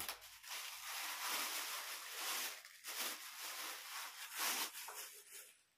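Clear plastic packaging crinkling and rustling in uneven bursts as a wrapped stand-mixer accessory is lifted out of its box and handled; it stops suddenly near the end.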